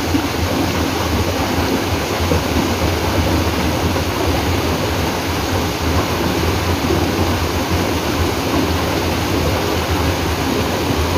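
Shallow mountain stream rushing over boulders and small cascades, a steady loud noise of running water.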